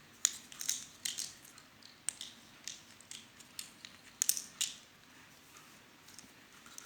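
Light, irregular clicks and rustles of small plastic toy parts and doll-sized clothes being handled, about ten short taps scattered unevenly with quiet between.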